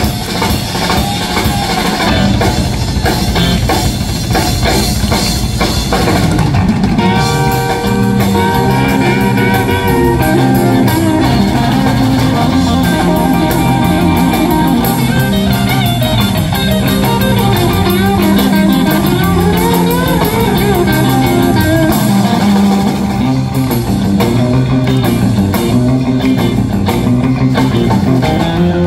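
Live rock band playing: electric guitars, bass guitar and drum kit. For the first few seconds it is mostly drums; about seven seconds in, a sustained melodic line with bent notes comes in over the beat.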